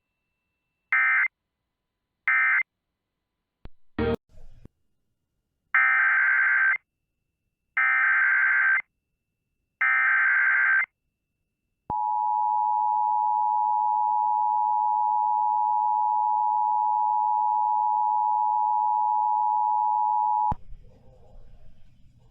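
Emergency Alert System tones. First come three short SAME data bursts, the end-of-message code of the alert just finished, then a brief click about four seconds in. Three longer SAME header bursts follow, about two seconds apart, and then the steady two-tone EAS attention signal holds for about eight and a half seconds before cutting off.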